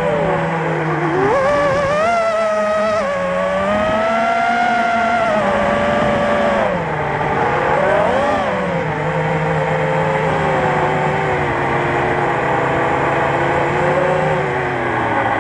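FPV racing drone's motors and propellers whining steadily. The pitch rises and falls with the throttle, swinging up sharply a couple of times as the drone manoeuvres.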